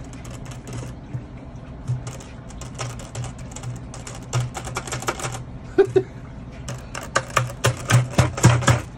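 Quick runs of light clicks and taps from hands working the red poultry drinker nipples set in the bottom of a plastic bucket, over a steady low hum.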